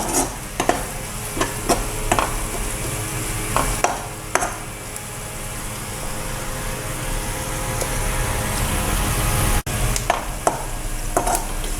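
Chopped onions and chilli powder sautéing in hot oil in a kadai, sizzling steadily. A spoon scrapes and clicks against the pan as it stirs in the first few seconds and again near the end.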